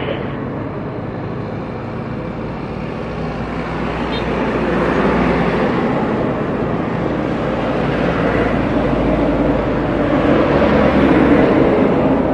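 Airbus A320-214's CFM56 jet engines running at taxi power as the airliner turns onto the runway. A steady jet rumble that grows louder about a third of the way in and again near the end.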